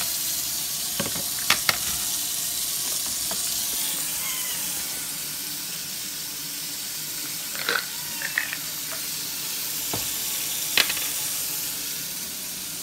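Water running steadily from a kitchen tap into a sink, a continuous hiss, with a few short sharp clicks and clinks: two about a second and a half in, a small cluster around eight seconds, and one near eleven seconds.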